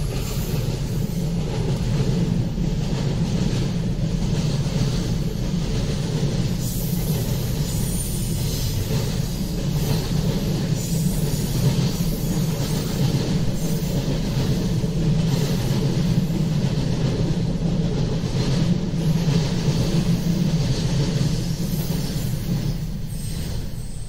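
Container wagons of a long freight train rolling past: a steady rumble with scattered wheel clacks on the rails, easing off slightly near the end as the train draws away.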